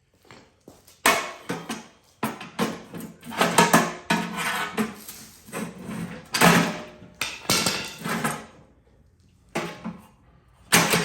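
Repeated metallic clanks, bangs and rattles of a small, cheap steel safe being forced further open, in clusters with short pauses between them and another pair of hits near the end.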